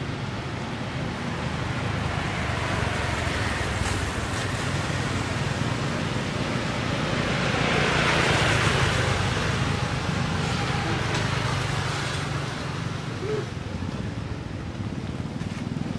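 A motor vehicle passing by over a steady low hum, growing louder to its peak about halfway through and then fading away.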